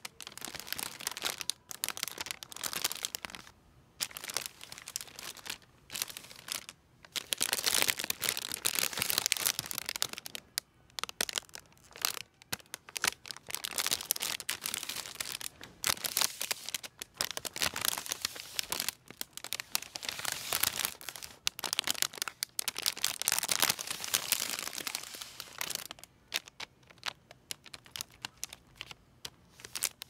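Clear cellophane wrapping on pre-made Easter baskets crinkling and crackling under fingertips, in irregular bursts that are most intense about a quarter of the way in.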